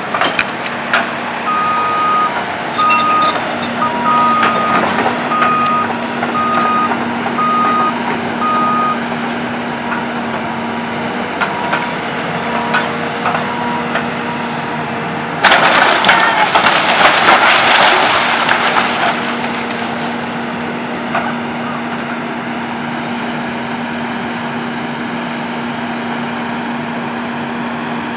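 Kobelco excavator's diesel engine running steadily, with its warning alarm beeping about once a second during the first several seconds. About fifteen seconds in comes a loud crash of timber and debris lasting around three seconds as the gutted building's roof and walls come down.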